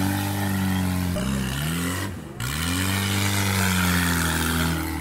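Off-road vehicle engine revving hard under load. The pitch steps down about a second in, the engine sound nearly cuts out for a moment around two seconds in, then it climbs back up and holds high until it eases off near the end.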